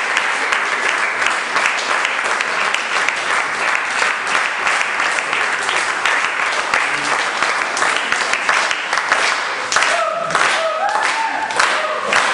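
Audience applauding: steady, dense clapping. Near the end a few short pitched voice sounds rise over it.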